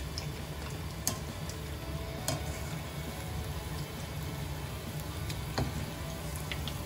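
Cornflake-coated soya nuggets deep-frying in hot oil: a steady sizzle. A wire spider skimmer turning them clicks lightly against the pan about three times.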